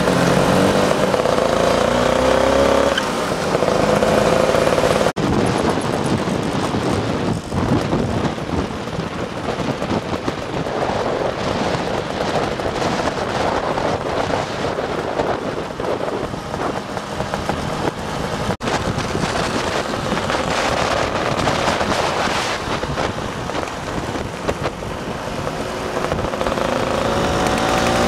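Classic two-stroke Vespa scooter engines running on the move, mixed with heavy wind and road noise. The engine note is clearest in the first few seconds and rises near the end as a scooter accelerates.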